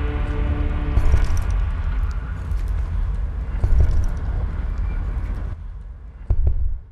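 Closing sound design of a film score: the last held music notes die away, leaving a deep rumble with scattered clicks and knocks that fades out, then one short loud rumble just before the sound cuts off.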